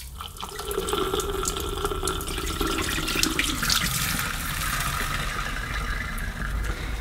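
Dirty, foamy water from a carpet washer's waste tank pouring in a steady stream into a ceramic sink, starting a moment in.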